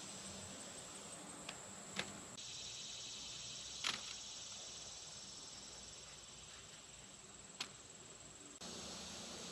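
Faint, steady high chirring of insects, with a few short, sharp knocks of potatoes being handled and set into a wicker basket. The loudest knock comes about four seconds in and another near the end.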